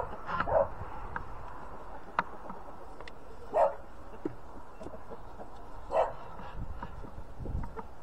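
A dog barking: a few short single barks, spaced one to a few seconds apart.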